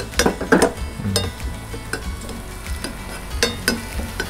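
Minced garlic sizzling as it fries in olive oil in an enamelled skillet. A metal spoon stirs it, scraping and clicking against the pan again and again.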